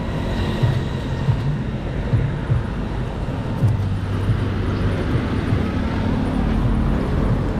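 Street traffic: motor vehicle engines running with a steady low rumble.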